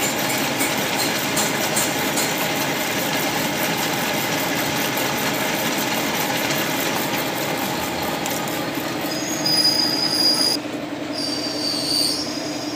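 A metal lathe running steadily with its chuck spinning, while a white engineering-plastic bushing is turned and cut on it. About ten seconds in the sound changes and drops a little.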